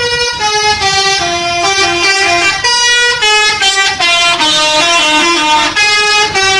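Indonesian bus 'telolet' musical air horn playing a quick tune of short held notes, stepping up and down in pitch several times a second without a break.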